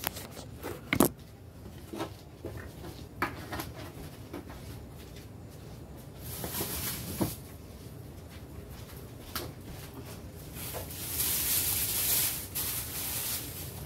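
Scattered knocks and clicks with two stretches of rustling, about six and eleven seconds in: household handling noise, like doors or objects being moved about.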